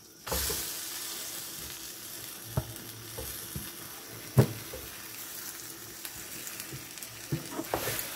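Boiled moong dal tipped into a pan of gram flour frying in oil, setting off a sudden steady sizzle. The bowl knocks against the pan a couple of times, sharpest about four and a half seconds in, and near the end a wooden spatula stirs and scrapes the mixture with a few quick clicks.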